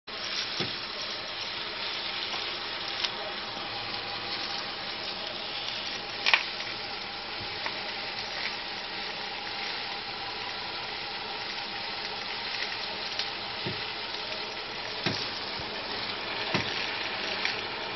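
Irregular knocks from the front end of a Kia Ceed, several spaced seconds apart, the loudest a little after six seconds in, over a steady rushing noise. The knocking is the front-end fault the owner is recording.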